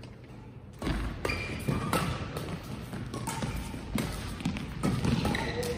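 Badminton doubles rally: rackets striking the shuttlecock, footsteps and lunges thudding on the court, and short sneaker squeaks on the floor. The hits come irregularly, about two a second, starting about a second in.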